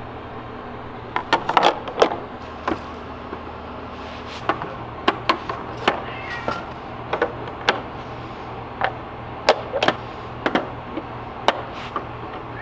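Eggs being set one by one into clear plastic egg trays, and the trays stacked: irregular sharp clicks and taps of eggshell and hard plastic against plastic, about twenty through the stretch.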